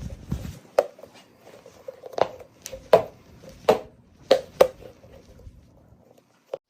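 Sharp clicks and clacks of a hard fidget toy being handled, about ten separate strikes at uneven intervals, with a short lull before the last one near the end.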